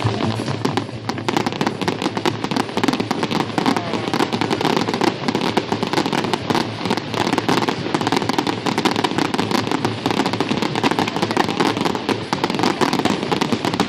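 Fireworks crackling and popping in a rapid, continuous stream of many small bangs.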